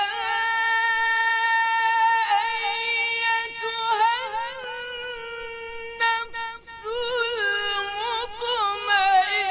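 A woman's voice singing a wordless melody as film score: long held notes that break into quick ornamented turns in the second half.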